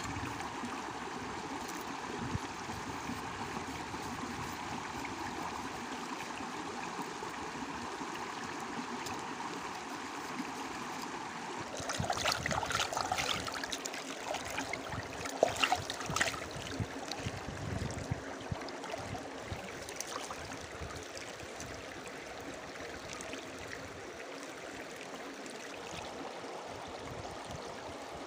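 Shallow rocky stream flowing steadily over stones. From about twelve to seventeen seconds in there is a louder spell of splashing as a hand and bamboo skewers are dipped in the water.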